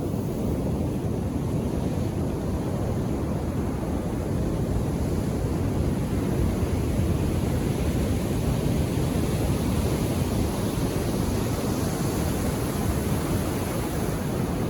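Ocean surf washing onto the shore: a low, steady rush of breaking waves that swells slightly around the middle.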